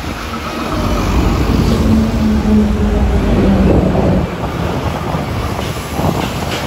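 Formation of Embraer A-29 Super Tucano turboprop aircraft flying past with a loud engine and propeller drone. It swells about a second in, is loudest in the middle and eases after about four seconds. A low droning tone in it drops slightly in pitch as the planes pass.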